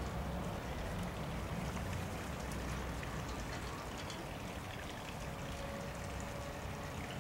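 Steady outdoor background noise: a low rumble with faint, scattered ticks.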